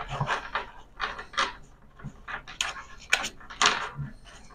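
A deck of playing cards handled in both hands: short, irregular papery rustles and clicks as the cards are worked and squared.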